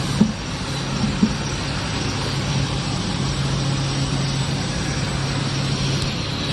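Steady machine hum with a constant low tone and an even hiss above it, with two light knocks about a quarter second and just over a second in.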